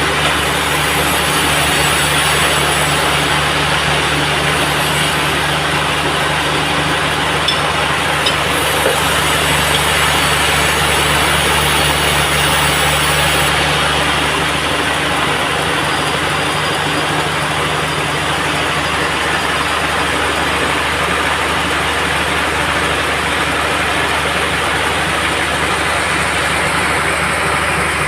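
Band sawmill machinery running steadily: an even engine-like hum with a loud, continuous hiss over it.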